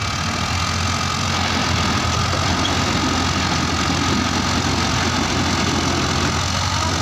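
Ford tractor's diesel engine running steadily under heavy load as it tows a loaded truck.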